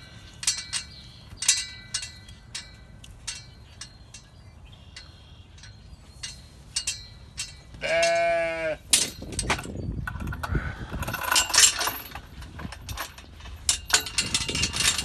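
A sheep bleats once, a call just under a second long, amid scattered light clicks and knocks. From about nine seconds in, louder clattering and rustling take over.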